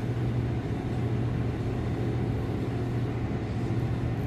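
Electric knife sharpener running steadily with a constant hum as a Bubba Blade fillet knife is ground on it at the next, finer grit.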